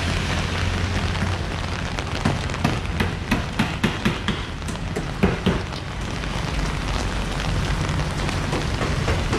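Rainy street ambience: a steady low rumble of road traffic under the hiss of rain. For a few seconds in the middle comes a run of sharp, irregular taps, heavy drops striking close to the microphone.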